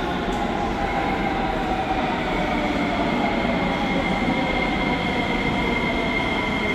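Sofia Metro train pulling into an underground station from the tunnel: a continuous rumble of wheels on rails, joined about two seconds in by a steady high whine that holds as the train comes alongside the platform.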